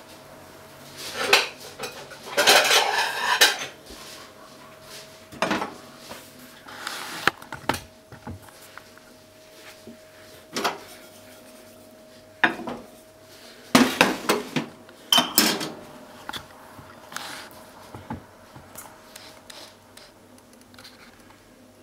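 Kitchenware clattering: a ceramic plate and a metal pot being handled on a gas stovetop. There is a dense run of clinks about two to three and a half seconds in, then scattered separate knocks, over a faint steady hum.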